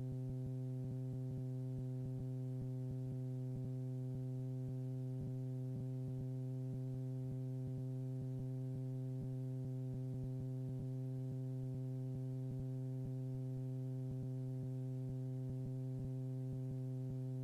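Steady electrical hum with evenly spaced overtones on the cockpit intercom audio line, unchanging, cutting in sharply as the voice stops.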